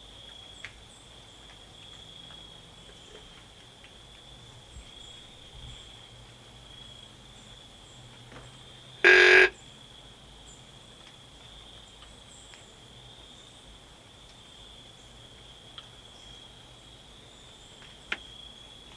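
Steady high-pitched chorus of crickets or other insects in the woods, with a few faint ticks. About nine seconds in comes one loud, short call lasting about half a second.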